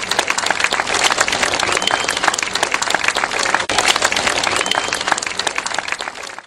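Crowd applauding: dense, steady clapping that cuts off suddenly near the end.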